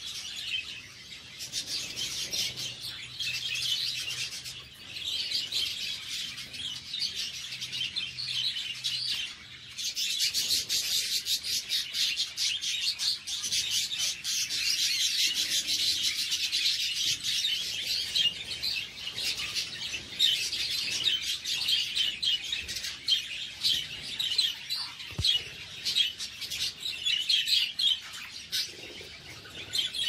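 A colony of budgerigars chirping and chattering together, a dense, continuous twitter of many birds at once that grows louder about ten seconds in.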